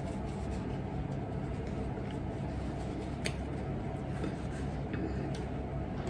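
Steady low room hum, with a faint click or two from dishes and plastic wrap being handled on a meal tray.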